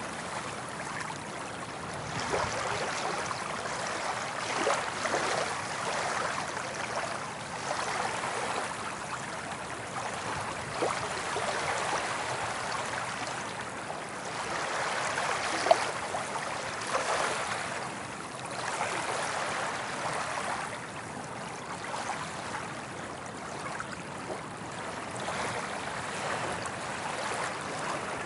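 Small waves washing onto a beach, the wash swelling and easing every few seconds, with light fizzing and a few faint pops in the foam.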